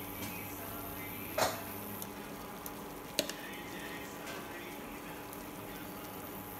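Thick tomato-based masala gravy simmering and sizzling in a nonstick pan, a steady hiss, with two short sharp clicks about a second and a half and three seconds in.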